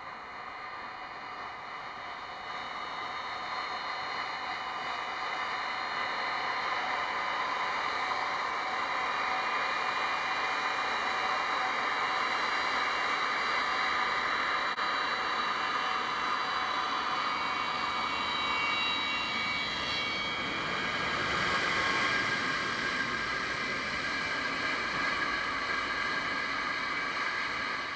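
Antonov An-124's four Progress D-18T turbofans whining at taxi power as the freighter rolls toward and past, a steady high whine over a rushing noise. The sound builds over the first several seconds, is loudest about three-quarters of the way through as the aircraft passes, then eases slightly as it draws away.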